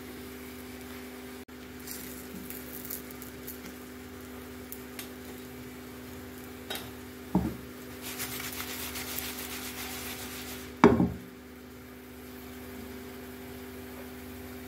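Thin egg-and-flour crepe batter sizzling in a frying pan on a gas stove, over a steady low hum. Two knocks, the louder about eleven seconds in.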